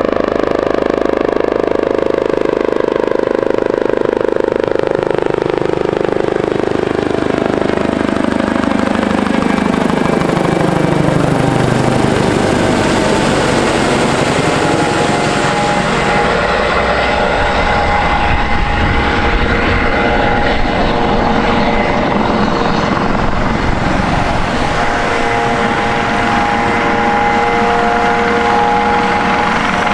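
Airbus AS365 Dauphin helicopter flying in low and passing overhead, the pitch of its rotor and turbines falling over the first dozen seconds as it goes by. It then hovers low over the runway, with a steady whine of several tones over the rotor noise.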